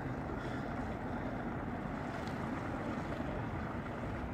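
Steady wind on the microphone with lake water lapping, an even noise that does not change.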